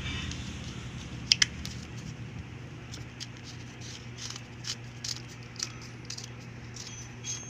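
Small clicks and taps from handling and fitting together the parts of a three-pin microphone cable connector, with two sharp clicks close together about a second in, over a steady low hum.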